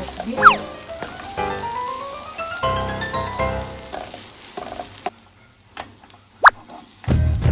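Smoked beef slices, red chilli and garlic sizzling in hot oil in a non-stick frying pan as they are stirred, under background music with a rising run of notes. A short falling whistle-like swoop comes about half a second in and is the loudest sound. The sizzle drops away about five seconds in.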